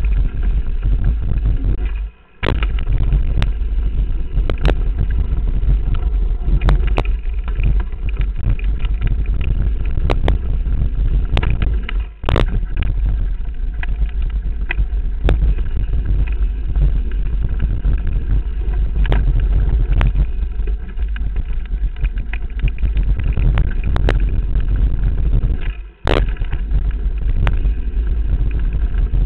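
Wind buffeting the camera microphone and a Transition Bottlerocket mountain bike rattling down a dirt trail at speed, with many sharp knocks from the chain and frame over bumps. The noise drops out briefly twice, about two seconds in and near the end.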